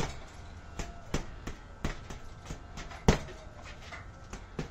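Boxing gloves hitting a hanging Everlast heavy bag in an uneven string of punches, about eight or nine hits, the hardest at the start and about three seconds in.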